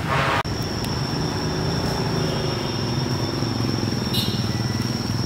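A steady low rumble, like an engine or traffic, with a constant high-pitched whine over it; a short burst of noise at the start cuts off abruptly about half a second in.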